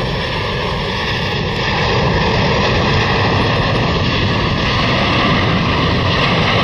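Jet engines of a U.S. Air Force C-17 four-engine transport flying low on landing approach: a loud, steady rush of jet noise.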